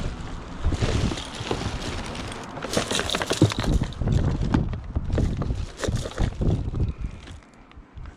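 Wind buffeting the microphone in uneven low rumbles, mixed with many short clicks and knocks of scrap being handled and rummaged through. It quietens briefly near the end.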